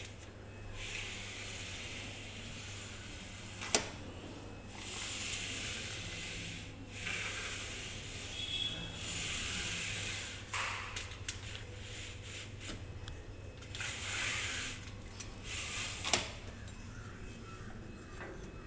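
Sliding pleated mosquito net screen being pushed along its track by hand: stretches of rasping hiss as the frame and folded mesh slide, with two sharp clicks, one about four seconds in and one near the end.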